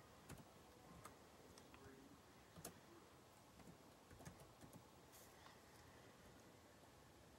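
Near silence with faint, scattered clicks of computer keyboard typing, irregular and unevenly spaced.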